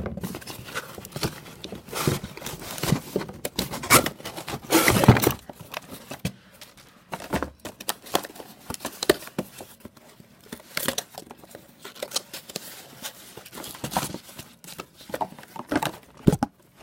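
Packaging being handled during unpacking: plastic and cardboard crinkling and rustling in short, irregular bursts, with a longer, louder tearing or crinkling stretch about five seconds in.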